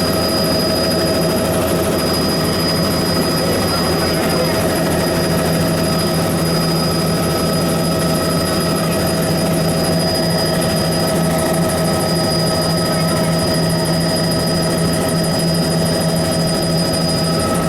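Helicopter running steadily: a constant engine and rotor drone with a steady high whine over it.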